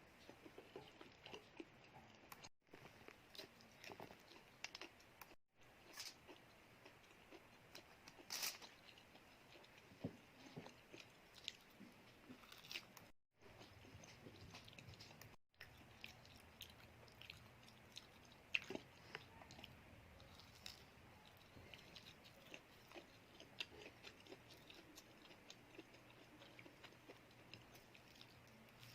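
Close-miked chewing and crunching of cheese sticks: a run of small crisp bites and wet mouth clicks, with a few louder crunches and several brief silent gaps.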